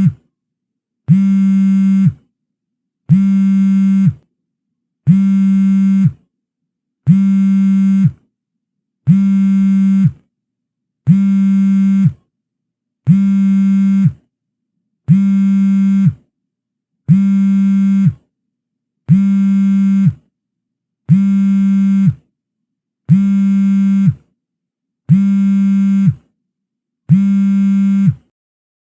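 A phone's vibrate-alert buzz used as a ringtone. A low buzz lasts about a second and repeats every two seconds, fourteen times in a row.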